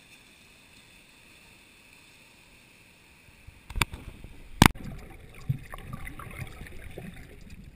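Muffled water sloshing and gurgling against an action camera's waterproof housing as it goes underwater, after two sharp knocks on the housing close together about four seconds in; before that only a faint hiss.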